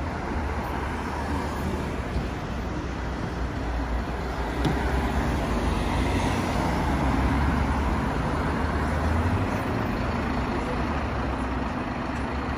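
City street traffic: cars and a bus driving past with a steady rumble of engines and tyres, which swells about halfway through and eases off near the end.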